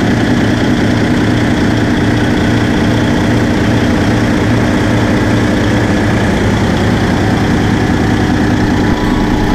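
Caterpillar C18 inline-six marine diesel engine running steadily at constant speed, heard up close in the engine room, with a low, even throb and no change in revs.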